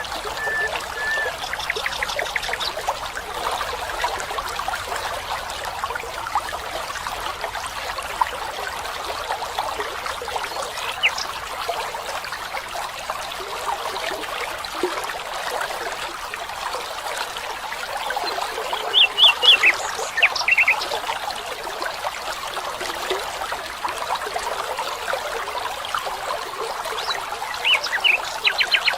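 Stream water trickling steadily, with short bird calls now and then over it, a small cluster of them about two-thirds of the way through and again near the end.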